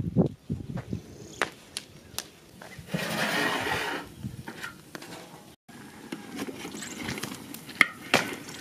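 Knocks and clinks of a cooking pot over a wood fire being handled and uncovered, with about a second of steady hissing about three seconds in as steam comes off the stewing lamb.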